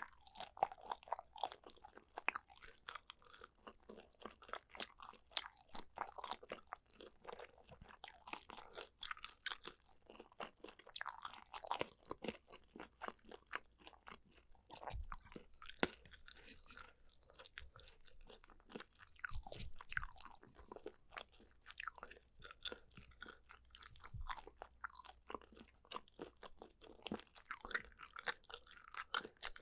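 A person chewing food close to the microphone, a steady run of irregular small clicks and crackles, with a few soft low thuds along the way.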